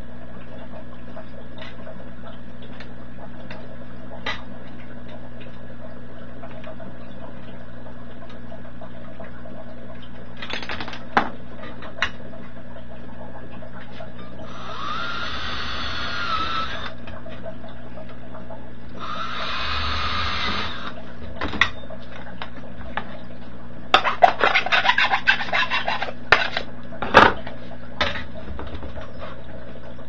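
Cordless drill with a 9/64 in bit drilling through a thin sheet-metal enclosure, in two short runs of a couple of seconds each near the middle; the first run's motor whine rises as it spins up. After the drilling comes a burst of rattling and sharp clicks as the metal box and parts are handled.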